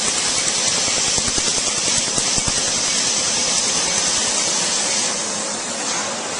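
Tattoo removal laser firing a rapid run of pulses, heard as many quick low clicks over a steady hiss. The clicks are densest in the first few seconds, and the hiss eases a little near the end.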